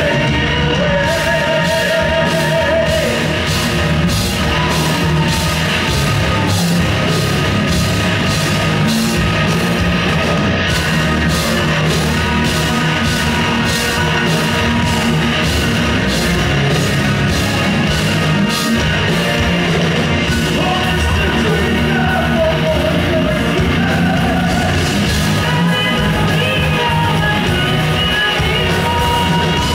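Symphonic metal band playing live, heard from the audience: drums keeping a steady beat under guitars and sung vocals.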